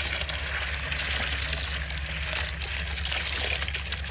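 Pumped septic effluent pouring and splashing steadily into a distribution box manifold, feeding the drain-field lines through their dial-a-flow fittings, with a steady low hum underneath.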